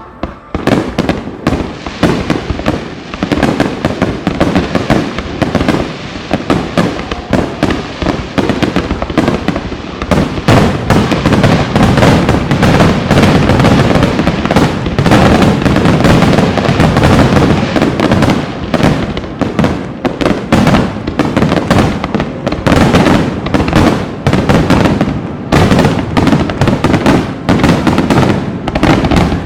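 Aerial fireworks bursting in rapid succession, a dense barrage of bangs and crackles that is heaviest and loudest through the middle.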